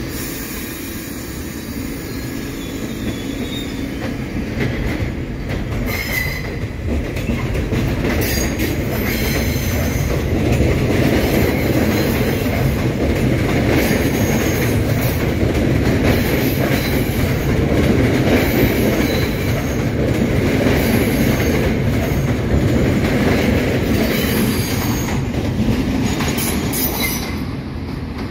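R188 subway train running past a station platform, its steel wheels clicking sharply every second or two over the rail joints. The rumble grows louder over the first ten seconds and drops off just before the end.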